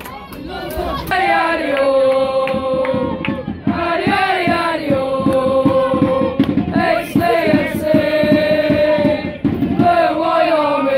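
Football crowd chanting on the terrace: many voices singing a short, drawn-out phrase that repeats about every three seconds.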